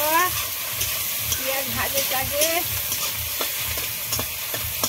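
Sliced onions sizzling in hot oil in an aluminium kadhai, stirred with a metal spatula that scrapes and taps against the pan at irregular moments.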